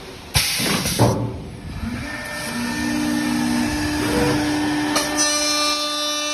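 CNC horizontal drilling machine for woodworking starting up. Two sudden loud bursts of noise come within the first second. Steady whining tones begin about two seconds in, and a denser, higher multi-tone whine joins about five seconds in as the motors run.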